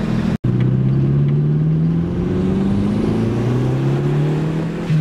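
Bolt-on-turbo Proton Saga's four-cylinder engine heard from inside the cabin, pulling under acceleration with its note rising steadily, then dropping right at the end as the revs fall for a gear change. The sound drops out for a split second about half a second in.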